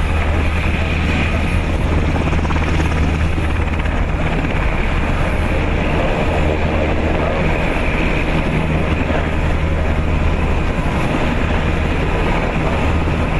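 Two Sikorsky VH-60N presidential helicopters with rotors turning on the ground, giving steady engine and rotor noise over a deep, unchanging hum.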